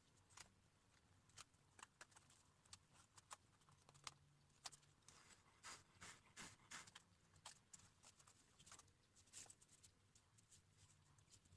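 Faint, irregular clicks and taps of cardboard and craft tools being handled, with a few short scratchy scrapes around the middle, over a low steady hum.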